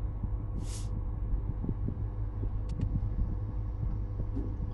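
Steady low background hum, with a brief hiss about a second in and a few faint clicks as a small electronic part is handled and pressed onto an adhesive pad.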